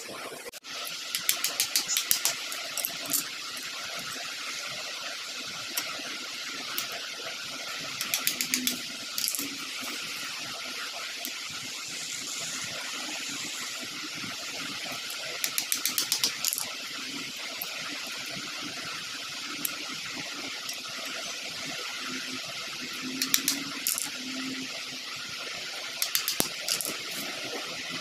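Five short bursts of quick, sharp clicking and tapping as a screwdriver is worked against small wooden sticks on a hard stone terrazzo floor. A steady hiss runs underneath.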